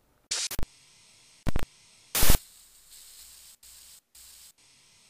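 Harsh bursts of TV-style static hiss: several short bursts in the first two and a half seconds, the loudest a little after two seconds. Then a fainter hiss that cuts out twice and stops about half a second before the end.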